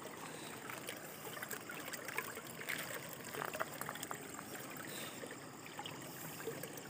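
Shallow stream water running and trickling, with a few small splashes and knocks near the middle as a folding umbrella net trap is set in the water.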